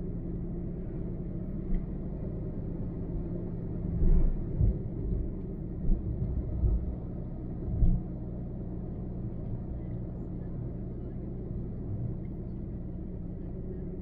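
Steady low rumble of a car driving on a highway, with engine hum and road noise. A handful of loud, low thumps come between about four and eight seconds in.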